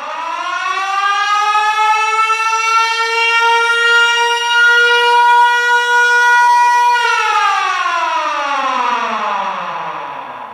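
Military air-raid siren sounding one full cycle: it winds up in pitch over about three seconds, holds a steady wail for about four seconds, then winds down and stops.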